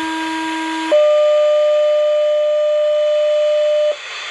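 Two-tone sequential fire/EMS pager alert from the dispatch channel, heard over a scanner's speaker: a lower steady tone for about a second, then a higher tone held for about three seconds, over radio hiss. These are the tones that set off the fire department's pagers for the weekly pager test; the hiss carries on after the tones stop.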